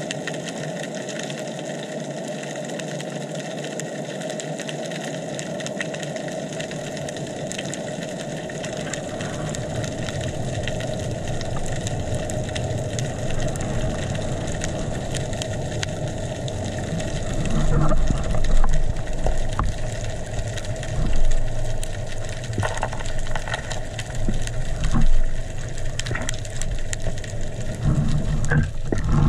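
Underwater sound through a waterproof camera housing: a steady, muffled hiss with a faint constant hum. Partway through, low rumbling surges and knocks from water movement and handling join in.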